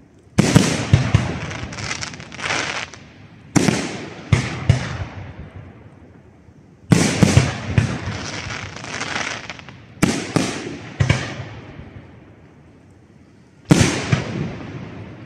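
Aerial firework shells bursting at a large display: a sharp bang every second to three seconds, about seven in all, each followed by crackling and a rumble that dies away.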